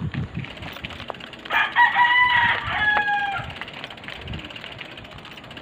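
Rooster crowing once, beginning about one and a half seconds in: a long cock-a-doodle-doo in two parts, the last note falling slightly.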